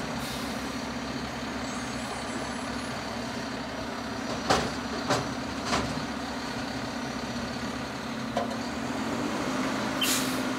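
Front-loader garbage truck's engine running under hydraulic load as its front forks lift a dumpster up over the cab and tip it, with three loud bangs a little under halfway in as the container is dumped. The engine pitch rises near the end, and a brief burst of air hiss follows.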